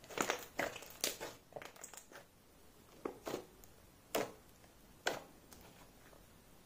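Thick clay slime squished and pressed by fingers: a quick run of wet squishes and pops in the first two seconds, then a few single pops about a second apart.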